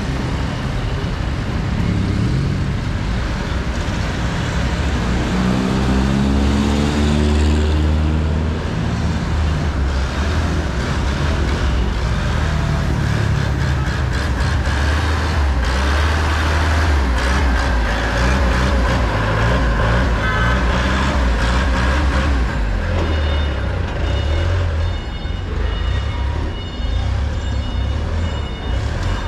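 Busy city road traffic: the engines of passing vehicles run with a continuous low rumble. About five seconds in, one heavy vehicle's engine rises in pitch as it pulls away.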